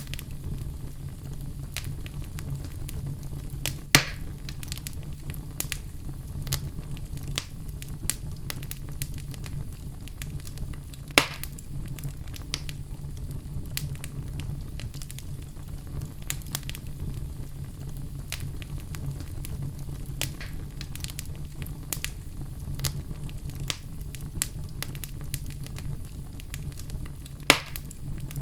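Wood fire burning in a fireplace: a steady low rumble of flame under continual light crackling, with three sharp, louder pops spread through it.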